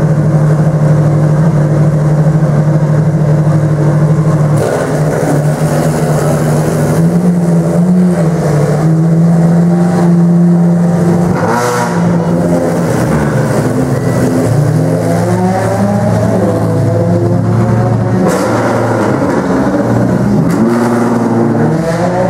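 Ferrari V12 race car engines from the XX programme idling, with several throttle blips that rise and fall in pitch partway through and again near the end. The sound changes abruptly a few times as it cuts between cars.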